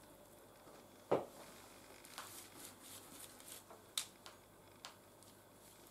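Quiet handling of a sesame-coated bread loaf and a cloth: a dull thump about a second in, then light rustling and a few small clicks as the loaf is set on a paper-lined baking tray and covered.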